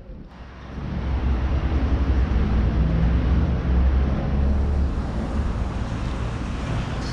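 Outdoor street ambience dominated by a loud, low rumble that comes up about half a second in and then holds steady.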